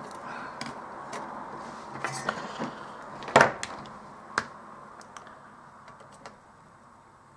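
Small tools and parts being handled on a workbench: light clicks and taps, with a sharp knock about three and a half seconds in and a smaller one a second later.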